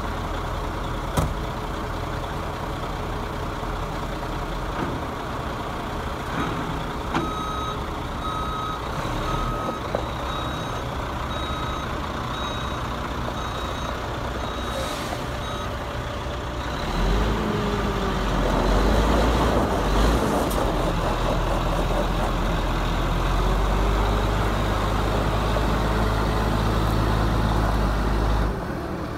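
1999 Sterling flatbed truck's diesel engine idling, with a backup alarm beeping about once a second for several seconds while the truck reverses. About halfway through, the engine gets louder as the truck pulls away, its pitch rising and falling as it accelerates.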